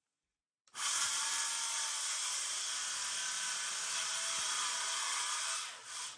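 Handheld circular saw ripping through a sheet of plywood: it starts under a second in, cuts at a steady pitch and level, and stops near the end with a short wind-down.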